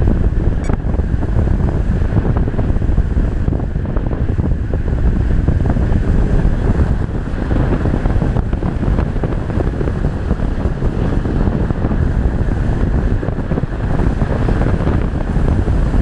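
Steady rush of airflow buffeting the microphone of a Reichard Blizzard model glider in gliding flight, deep and fluttering, with no motor tone.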